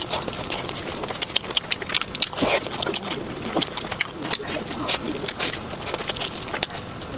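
A person eating up close: chewing and mouth smacking, with many quick, sharp wet clicks and crunches.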